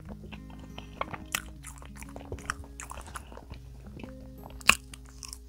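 Close-miked chewing and wet mouth clicks of someone eating a soft boiled potato, with a bite and one sharp, louder click a little before the end. Soft background music with held notes plays underneath.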